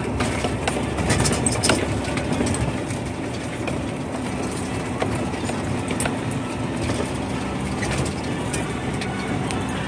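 Scania truck pulling a tipper semi-trailer, heard from inside the cab: a steady engine and road rumble while it drives over a rough quarry dirt track, with frequent rattles and knocks as the cab and trailer jolt over the bumps.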